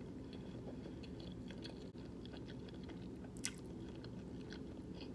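Close-up chewing and mouth sounds of a person eating pasta and meatballs: small wet clicks, with a sharper one about three and a half seconds in, over a steady low hum.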